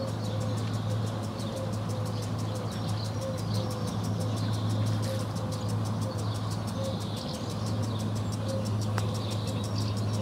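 Mid-morning park ambience: a steady low hum of distant traffic under a rapid, even ticking from a sprinkler, with the short twittering calls of swallows and house martins scattered through it.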